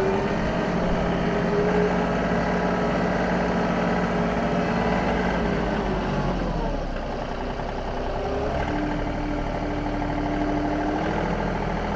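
John Deere 2038R compact tractor's three-cylinder diesel engine running steadily while pulling a chain harrow over tilled soil, its pitch dropping slightly about two-thirds of the way through.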